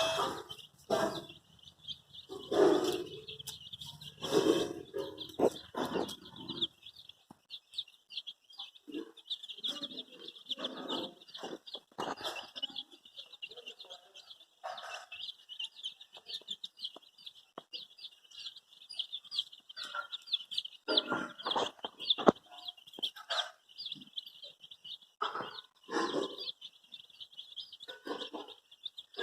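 A flock of baby chicks peeping: a dense, continuous stream of short, high-pitched peeps, with scattered knocks and rustles beneath.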